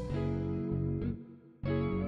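Background music led by plucked guitar notes, which break off briefly about a second and a half in before the next note sounds.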